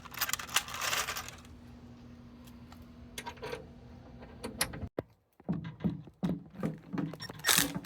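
Light metallic clinks and rattles, with brief bursts of rustling at the start and near the end.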